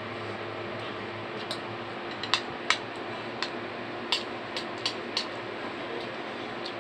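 Metal spoon clinking against a ceramic bowl while eating: about seven short, sharp clinks at irregular intervals, over a steady low hum.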